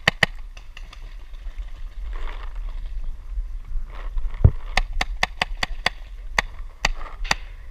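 Paintball marker firing: two shots at the start, then, after a single dull thump, a run of about a dozen quick shots a few per second in the second half.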